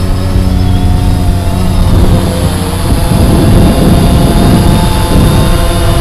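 DJI Phantom 3 Standard quadcopter's propellers whirring as it is flown in close, several steady tones that shift a little in pitch, over a heavy low rumble of strong wind on the microphone.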